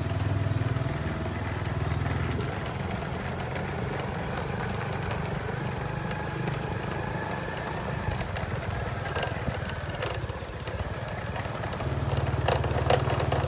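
Motorcycle engine running steadily while being ridden, growing a little louder near the end.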